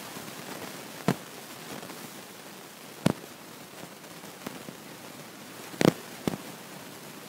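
A steady hiss with a few sharp clicks: one about a second in, another at about three seconds, and the loudest, a quick double click, near six seconds followed by one more.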